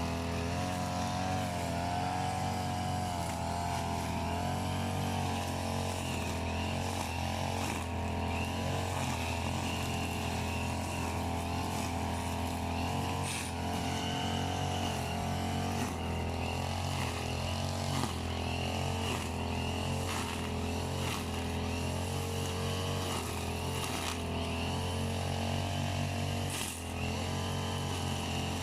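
Small engine of a brush cutter (grass-cutting machine) running steadily, its pitch wavering a little, with a brief dip in level near the end.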